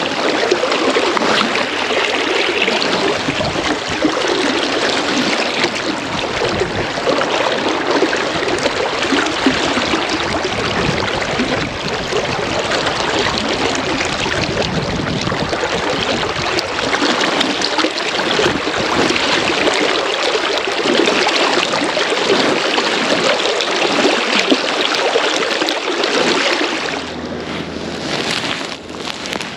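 Fast-flowing river water rushing past a wading angler close to the microphone: a steady, loud wash that grows somewhat quieter near the end.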